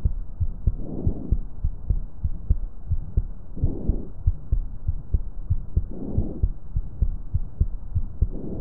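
Stethoscope recording over a healthy chest: normal vesicular breath sounds. A breath noise swells with each inhalation, four breaths about two and a half seconds apart, and nothing is heard on the exhalations. Heartbeat thuds repeat steadily underneath.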